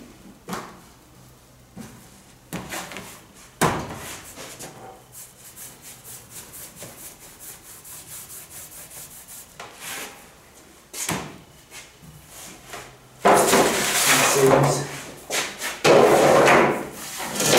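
Work sounds of dough and metal baking trays being handled on a stainless steel table: a sharp knock about four seconds in and another about eleven seconds in, with light taps between, then a louder stretch of scraping and clattering near the end.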